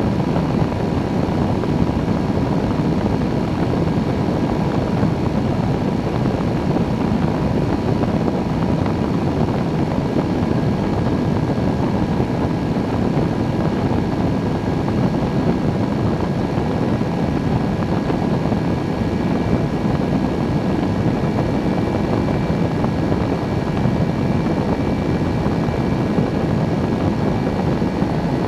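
Weight-shift microlight trike in cruising flight: a steady rush of wind on the wing-mounted camera mixed with the drone of the pusher engine and propeller, with a few faint steady tones, unchanging throughout.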